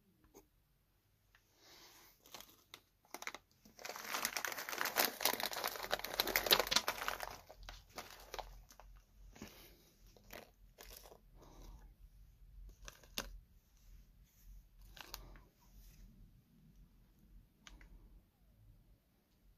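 Plastic cereal bag crinkling as it is handled: a dense stretch of crinkling from about three and a half to seven and a half seconds in, then scattered lighter crinkles.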